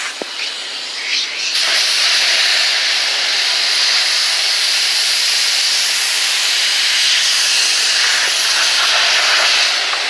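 A car-wash high-pressure wand spraying water onto a car seatbelt and door: a steady loud hiss that jumps up about a second and a half in.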